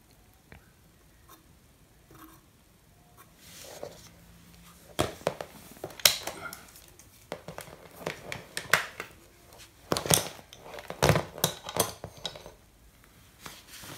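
Tools and a sheet-metal transformer case being handled and set down on a wooden floor: a string of irregular knocks, clacks and clicks. The noise starts about four seconds in and stops shortly before the end.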